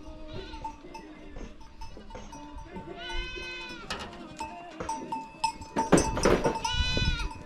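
Goats bleating: two long bleats, one about three seconds in and one near the end, with knocks and a brief clatter between them.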